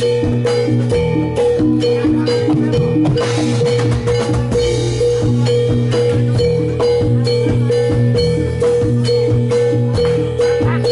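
Javanese gamelan music for a jathilan horse dance, played loud through a sound system: struck bronze metallophones ringing in a steady repeating pattern over drums.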